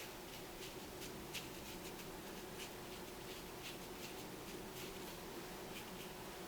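Faint, soft strokes of a Chinese painting brush dabbing and sweeping colour onto paper, irregular, about two a second, over a steady low room hum.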